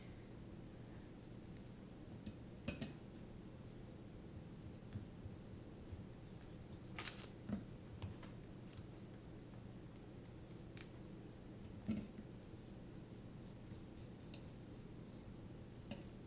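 Scattered light clicks and taps as carbon-fibre drone frame plates and a hex screwdriver are handled on a silicone work mat while the frame's screws are fastened, over a low steady hum.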